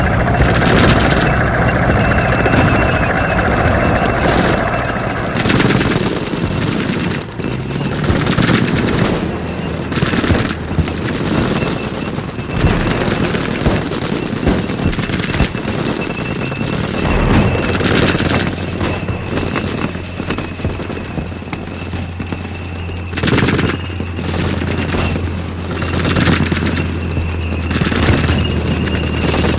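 Battle sound effect of a military exercise: repeated bursts of machine-gun and rifle fire with booms, over a steady low engine drone that comes in just past halfway and a thin high whine.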